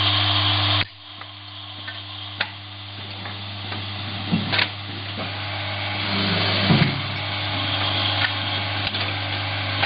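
Woodworking boring machine running with a steady hum and machine noise. The noise drops sharply about a second in, then slowly builds back up. A few sharp clicks and short knocks come through.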